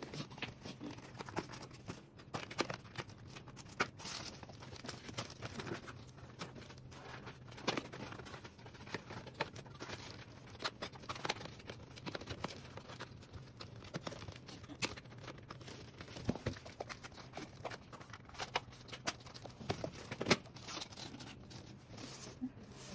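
Corrugated polypropylene board being folded and handled as a knock-down pet carrier is assembled: irregular clicks, crackles and scrapes of the plastic sheet and its tabs, over a faint steady low hum.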